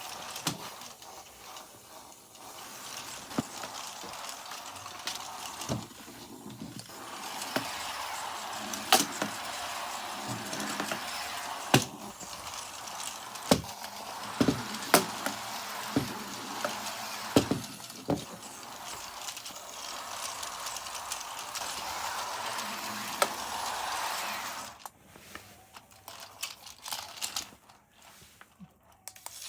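Toys and their packaging being handled: a string of sharp plastic clicks and knocks over a steady hiss-like noise, which drops away about 25 seconds in, leaving only a few scattered clicks.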